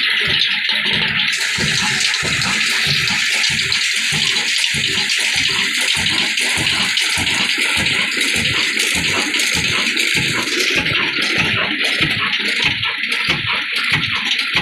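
22 hp Diamond Daska 'Kala' single-cylinder desi diesel oil engine running at a steady pace, an even slow beat of low thuds, under a loud continuous rushing hiss.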